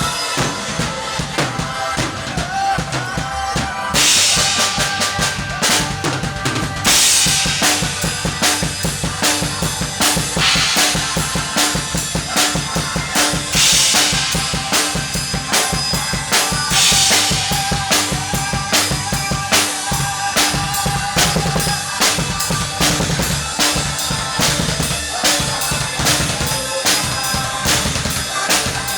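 Live rock band playing an instrumental passage, led by a drum kit: a steady kick-and-snare beat under sustained guitar or keyboard notes, with crash cymbal hits every few seconds in the first half.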